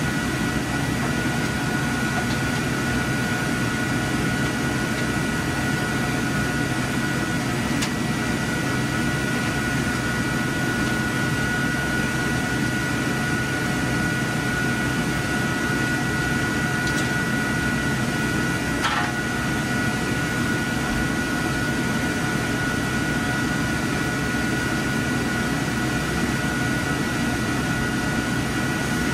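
Steady whir of IMAX 70mm projection-booth machinery and ventilation fans, with two thin high tones held throughout. A faint click comes about 8 seconds in and a brief faint rasp about 19 seconds in.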